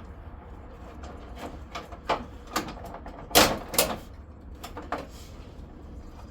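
Irregular clicks and knocks of parts and tools being handled while a car's front bumper is taken apart. The two loudest knocks come close together about three and a half seconds in.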